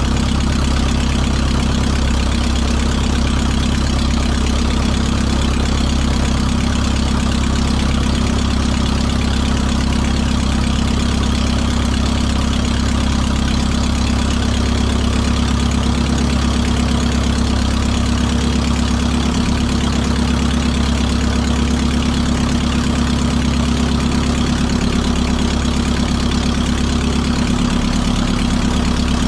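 RLU-1 Breezy homebuilt airplane's piston engine and propeller idling steadily at a constant speed, heard close up.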